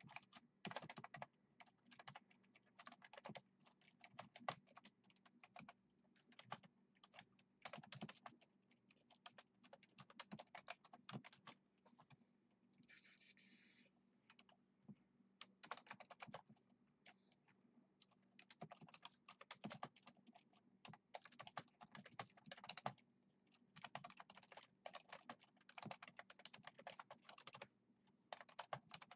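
Light typing on a computer keyboard, in quick bunches of key clicks with short pauses between them.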